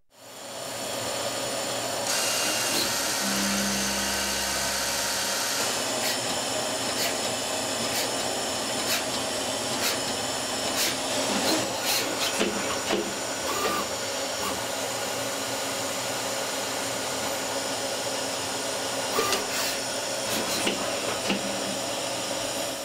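Citizen Cincom M16-VIII Swiss-type CNC lathe running a machining cycle: a steady whirring hiss with frequent sharp clicks and knocks, and a brief low hum a few seconds in.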